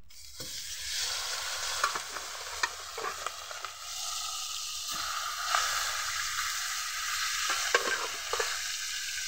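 Fish heads sizzling as they fry in hot mustard oil in a wok, with scattered sharp pops and clicks. The sizzle swells as the first head goes in, and is louder again when a second head follows about four seconds in.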